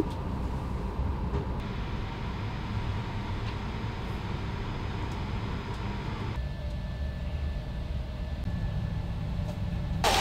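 Steady low rumble of an airliner cabin, with a faint steady hum over it. The hum changes pitch slightly about six and a half seconds in.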